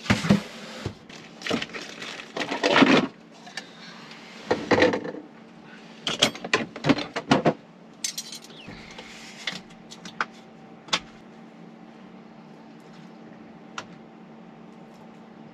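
Dishes and camp gear being handled: irregular clinks, knocks and rattles in bursts through the first half, then only a steady low hum with an odd click.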